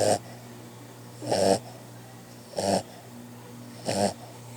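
Boxer puppy snoring in its sleep: short rattling snores about every 1.3 seconds, four in all.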